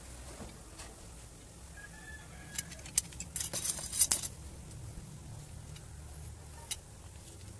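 Steel parts of a homemade bar clamp clinking and tapping against each other as they are handled: a few sharp metallic clicks, with a quick cluster of them about three to four seconds in, over faint background music.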